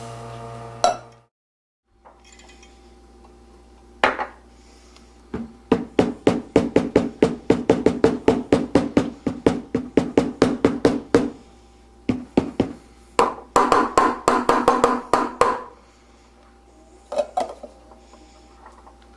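Stainless steel milk pitcher knocked repeatedly against a hard surface: a fast run of sharp, faintly ringing knocks about five a second for several seconds, then a second shorter run, with single knocks before and after. This is the usual tapping to knock the large bubbles out of freshly steamed milk foam.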